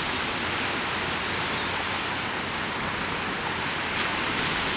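Steady rushing-water noise, an even hiss with no breaks or swells.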